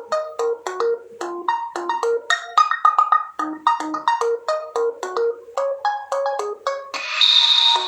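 A Realme C21Y smartphone ringtone: a quick melody of short, marimba-like mallet notes, about three or four a second. Near the end a hissing wash with a high steady tone joins the melody.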